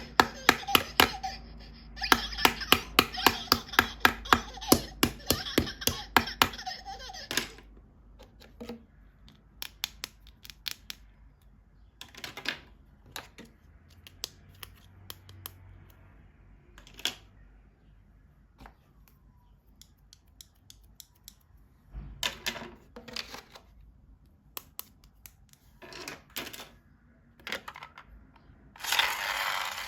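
Small plastic toys and packaging being handled. First comes a quick run of sharp clicks lasting several seconds, then scattered taps and clicks, and a burst of crinkling near the end.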